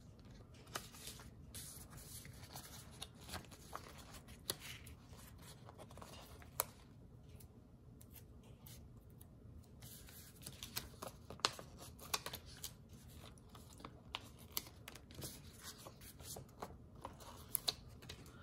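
Paper sticker sheets being handled and slid about on a tabletop: faint scattered rustling with small taps, busier in the second half.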